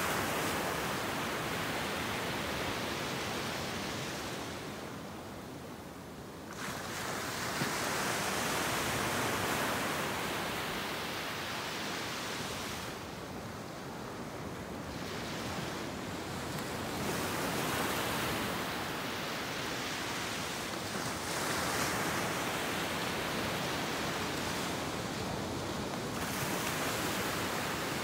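Sea surf breaking and washing up the beach: a steady rush of noise that swells and eases as each wave comes in and draws back.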